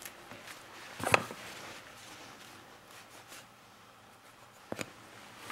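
Handling noises while working a lynx pelt: faint rustling of fur and gloves, with one sharp knock about a second in and two quick clicks near the end.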